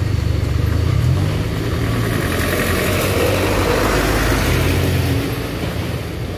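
Medium bus engine running as the bus drives past close by, its low engine note rising slightly about a second in and falling away a little after five seconds.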